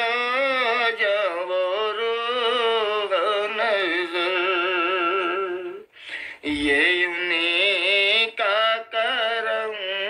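Devotional Urdu naat singing: a voice holding long, wavering melismatic notes, breaking off briefly about six seconds in and then resuming.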